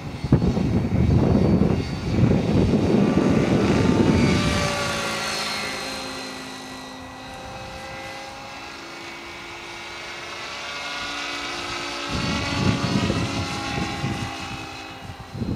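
Henseleit TDR electric radio-controlled helicopter in flight, its Kontronik Pyro 700 motor and drive whining with the pitch shifting slowly as it manoeuvres. There is a loud low rushing noise in the first four seconds or so and again near the end.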